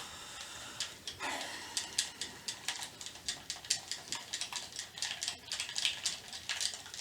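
A rapid, irregular run of short, faint breathy puffs from a person, several a second, with a stronger one a little over a second in.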